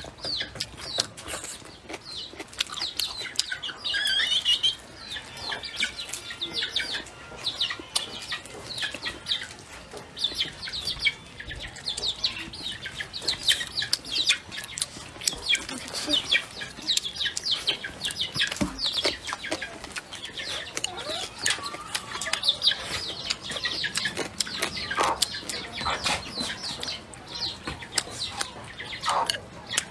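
Close-miked chewing and lip-smacking while eating stir-fried duck and rice: a continuous, irregular run of wet mouth clicks and smacks.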